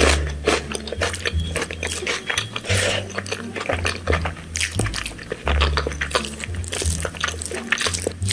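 Close-miked eating sounds of rice and dal chawal with aloo bhorta: many quick wet smacks, squishes and crunchy clicks from chewing, with a low droning tone underneath.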